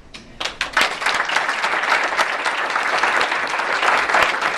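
Audience applauding: a few scattered claps at first, swelling into full applause about a second in.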